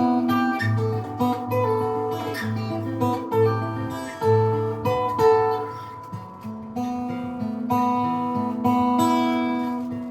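Acoustic guitar instrumental played live: plucked melody notes over a repeating bass note, settling into longer ringing chords about halfway through.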